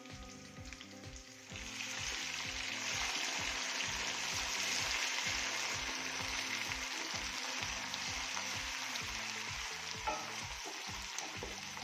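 Onions, ginger-garlic and crushed green chillies sizzling as they fry in hot ghee in an aluminium pot, stirred with a wooden spoon. The sizzle swells about a second and a half in and stays loud, with a single click of the spoon near the end.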